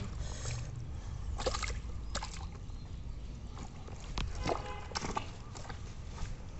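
Wet mud and water sloshing and squelching as a slippery fish is pulled out and gripped by hand, with several short, sharp wet slaps and clicks over a steady low rumble.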